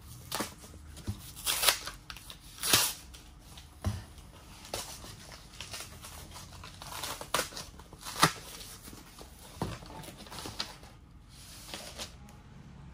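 Cardboard boxes and packaging rustling and crinkling in irregular bursts as items are pulled out and handled, with a few sharper crackles, the loudest about three seconds and eight seconds in.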